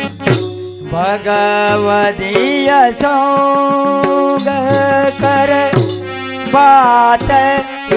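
Devotional kirtan singing: a voice holding long notes that slide and waver in pitch, over instrumental accompaniment with percussion.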